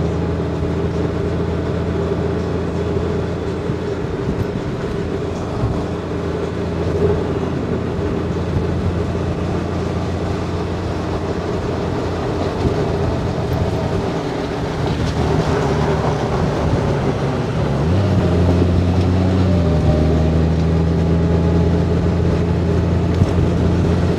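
Honda Gold Wing's flat-six engine running steadily under way, with wind and road noise. About 18 seconds in, the engine note steps up as it pulls harder, then eases slightly two seconds later.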